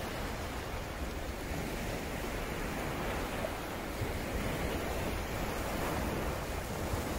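Steady wash of surf from waves on the shore, with a low wind rumble on the microphone.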